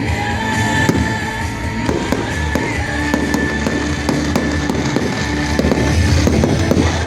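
Fireworks bursting and crackling in quick succession, with music playing along.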